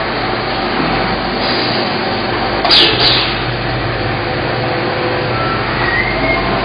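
Steady mechanical din of factory machinery, with two short hisses close together about three seconds in.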